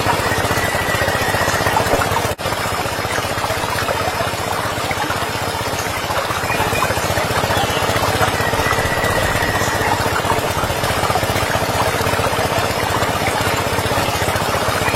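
A small motor running steadily with a dense, even mechanical noise, broken by a very short dropout about two and a half seconds in.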